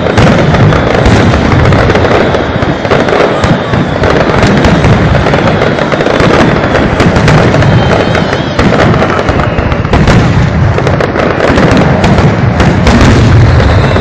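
Aerial fireworks shells bursting in a loud, rapid barrage, the bangs so close together that they run into one another.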